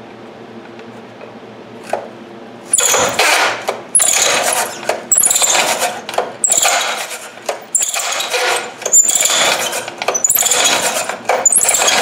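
Stihl TS 350 Super two-stroke cut-off saw being pull-cranked by its recoil starter, about eight hard pulls in quick succession beginning about three seconds in, each a rasping zip of the rope as the engine turns over. The spark plug is out and a compression gauge is in the plug hole, so the engine does not fire. This is a compression test, which reads close to 90 and which the owner takes to rule out a compression problem.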